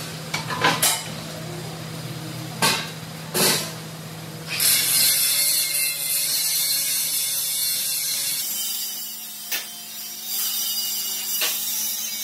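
Metal knocks and clatter as a steel frame is turned on its stand, then a compressed-air spray gun hissing steadily from about four and a half seconds in, easing off somewhat later. A steady low hum runs underneath.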